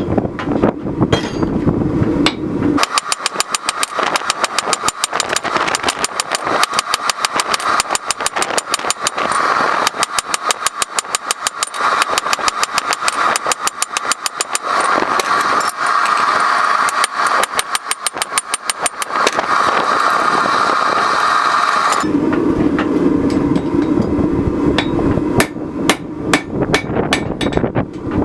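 Hammer blows on hot wrought iron as it is flattened: a fast, even run of strikes from about three seconds in until about six seconds before the end. A steady low hum with scattered knocks fills the start and the last few seconds.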